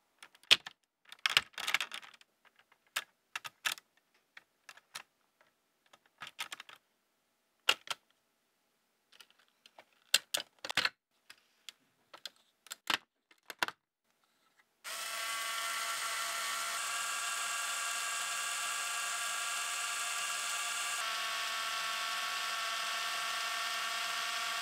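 Plastic Lego Technic parts clicking and snapping as pieces and a gear assembly are pressed onto the bridge frame. About fifteen seconds in, a steady whir starts: Lego motors turning the gear train and worm gears that drive the lift-bridge deck up and down the toothed racks, shifting slightly in tone a couple of times.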